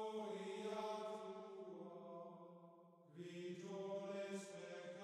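Slow, meditative drone music: a low held drone with sustained chant-like tones above it. The sound dips briefly about three seconds in, then continues on new notes.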